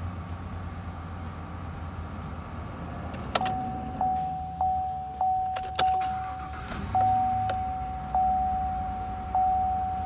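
Chevrolet Silverado pickup engine idling with a low, steady rumble, heard from inside the cab, then shutting off about three seconds in. After that, the cab warning chime dings over and over, about one and a half dings a second.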